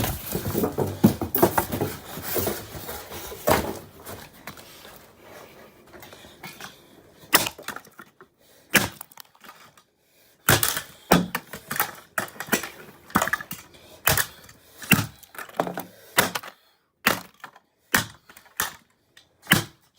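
Plastic housing of a Dirt Devil Classic race car vacuum being struck and broken apart: a few seconds of busy clattering, then a string of separate hard knocks and cracks at irregular intervals.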